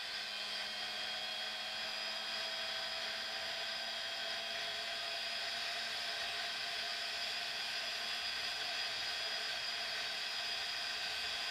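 Derbi X-Treme motorcycle engine running steadily under way, a whine whose pitch creeps slightly higher as the bike gathers speed.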